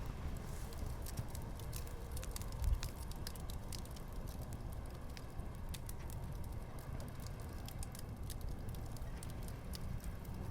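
Wood fire crackling, with many small irregular pops over a steady low rumble, and one soft low thump a little under three seconds in.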